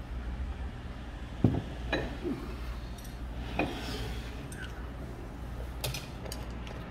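A heavy ceramic bowl set down on a wooden table with a solid knock about a second and a half in, followed by a few light clinks of metal chopsticks against tableware.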